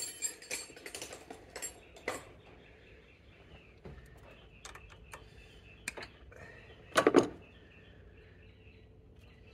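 Light clicking and handling of a hand wire cutter/stripper on a thin wire, with a burst of two or three sharp snaps about seven seconds in as the tool cuts or strips the wire.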